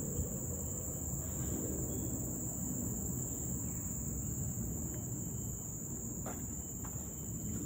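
A steady, high-pitched chorus of insects droning without a break, over a low rumble. A couple of faint short chirps come through about six and seven seconds in.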